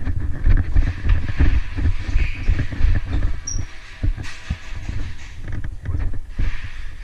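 Steady low rumble with many irregular knocks and thumps, the sound of wind and jostling on a moving body-worn microphone as a player runs.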